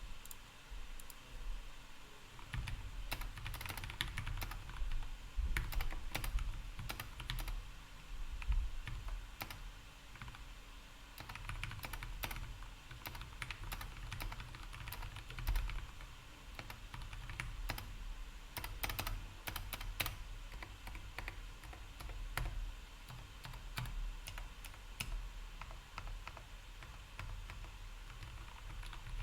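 Steady typing on a GK61x mechanical keyboard fitted with lubed Gateron Milk Black linear switches, in a wooden case with neoprene foam between the PCB and the case: a continuous, irregular run of keystrokes.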